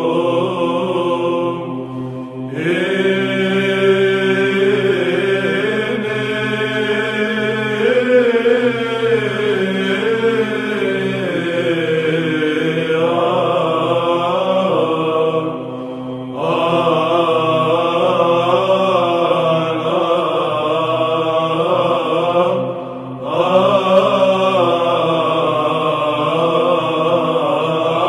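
Byzantine choir chanting: a slow melody sung over a steady held drone note (the ison). The singing breaks off briefly between phrases about two seconds in, again around sixteen seconds, and again around twenty-three seconds.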